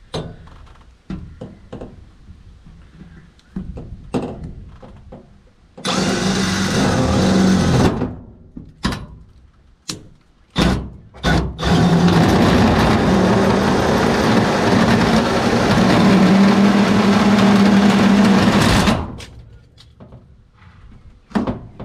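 Cordless drill with a hole saw cutting through corrugated metal wall siding: a short run about six seconds in, then a long steady run of about seven seconds that stops suddenly near the end, with scattered knocks of the saw against the wall before it.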